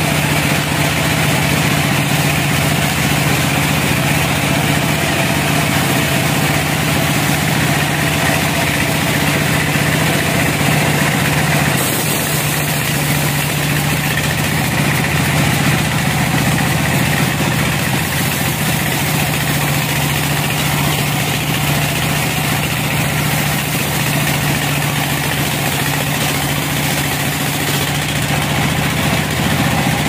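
Band sawmill running with a steady mechanical drone and hiss; the hiss grows a little brighter for a few seconds near the middle.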